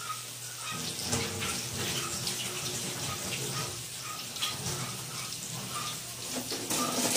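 Flour-breaded chicken fillets frying in shallow oil in a wok: a steady sizzle with many small crackles and pops.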